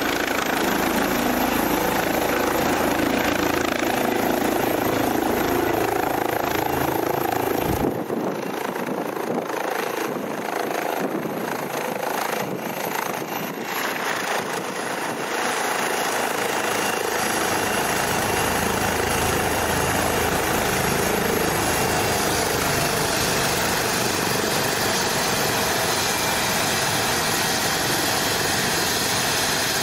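Air ambulance helicopter's rotor and turbines running loudly: first flying low overhead, then, after a sudden change about eight seconds in, sitting on the ground with the rotor still turning and a steady turbine whine.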